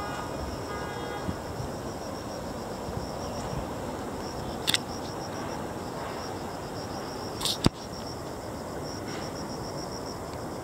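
Insects chirring: a steady, rapidly pulsing high trill over a continuous low background rush. Two brief sharp clicks cut in, about five seconds in and, louder, about seven and a half seconds in.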